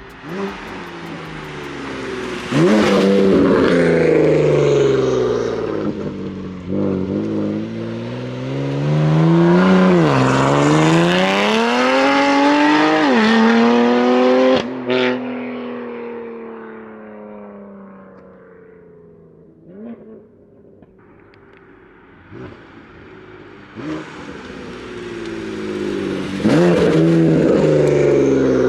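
BMW F80 M3's S55 twin-turbo inline-six, breathing through an equal-length exhaust, accelerating hard through several gears: the engine note climbs and drops at each shift and cuts off sharply about halfway. It then falls away slowly as the car slows, with a few short blips, and pulls hard again near the end.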